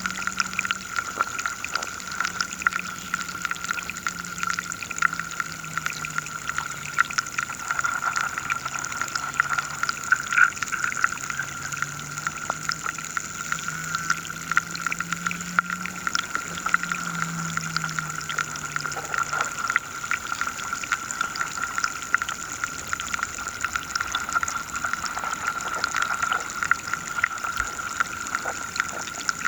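River sound heard underwater: dense crackling and clicking over a steady high-pitched hum. A low drone wavers slightly in pitch and fades out about two-thirds of the way through.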